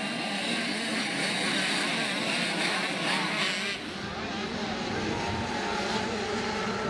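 Motocross bike engines running and revving at race speed, the sound changing abruptly about four seconds in.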